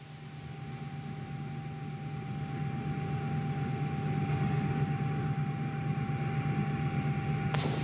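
Steady rushing noise with a low hum and a faint thin high tone, growing louder over the first few seconds and then holding steady: launch pad ambience before any engine is lit.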